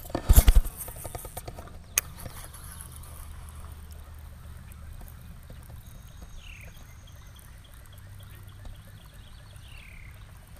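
Quiet outdoor background with a low steady rumble, opened by a sudden loud thump and followed by a sharp click about two seconds in. Faint falling bird chirps come a little past the middle and again near the end.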